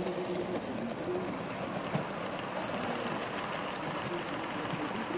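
HO-scale model steam tank locomotive and short passenger coaches running past on a layout: motor running and metal wheels rolling over the rails, with light rapid ticking.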